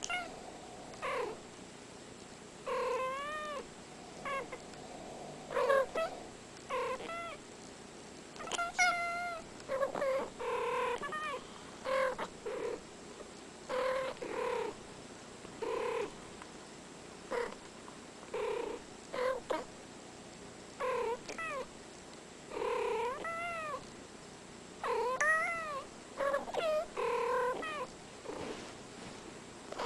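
Kittens meowing over and over, short calls about once a second that rise and fall in pitch, with a few longer drawn-out ones.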